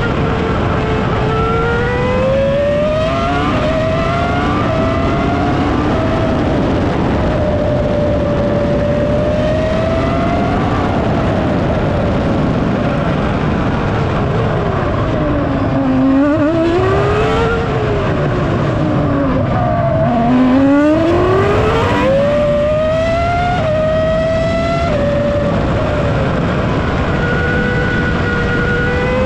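BMW 3.0-litre V10 of a 2003 Williams FW25 Formula One car, heard onboard at speed. The revs climb in stepped sweeps through quick upshifts, drop low twice through downshifts into slow corners about halfway through, then climb through the gears again.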